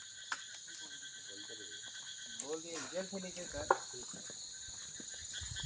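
Crickets and other night insects chirping in a steady, dense, high-pitched chorus. Faint voices come in briefly around the middle, and there are two sharp clicks.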